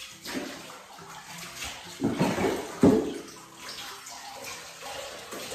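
Water poured from a plastic cup over a puppy's coat in a bathtub, splashing into the tub water, with the loudest pours about two and three seconds in.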